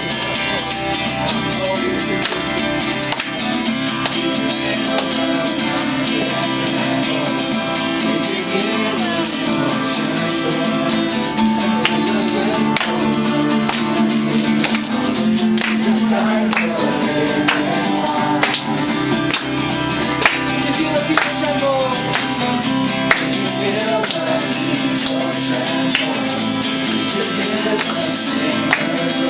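Music: a strummed acoustic guitar with singing.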